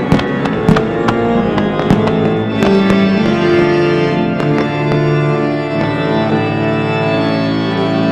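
Music with sustained organ-like chords. Several sharp cracks come in the first two seconds, with a few more later.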